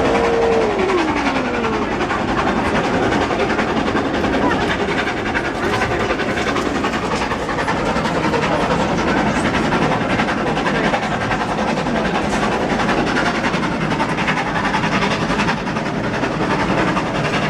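Steam-hauled train running at speed: a steady rumble and clatter of the carriage on the rails, with a brief falling tone in the first couple of seconds.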